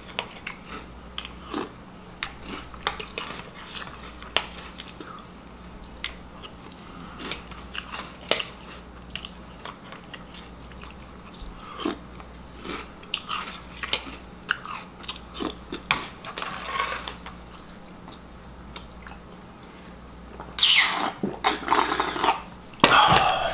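Close-up crunching and chewing of Reese's Puffs cereal in milk, a string of short sharp crunches with spoonfuls taken from a plastic bowl. Near the end, louder slurping as the leftover milk is drunk straight from the bowl.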